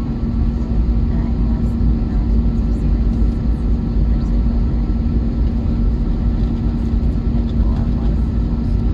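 Steady engine and airframe rumble inside the cabin of an Airbus A321neo, with a constant hum running through it.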